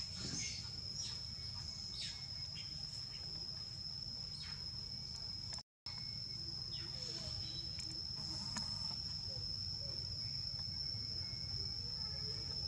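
A steady, high-pitched insect drone over a low background rumble, with a few faint rustles. Everything cuts out completely for a moment a little before the middle.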